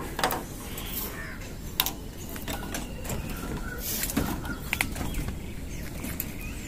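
Scattered light clicks and knocks of PVC conduit and fittings being handled, over a low steady outdoor rumble, with faint bird calls now and then.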